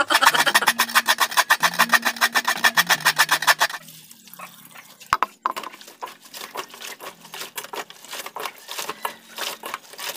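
Hands rubbing quickly and rhythmically in a steel basin of water for about three and a half seconds. Then softer, uneven wet squelching as grated coconut is kneaded and squeezed by hand in a steel basin to press out the coconut milk.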